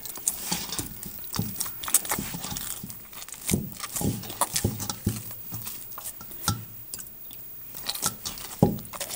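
Hands wet with cool water kneading freshly steamed dough in a stainless steel bowl, with irregular sticky squishes and slaps of the dough against the bowl.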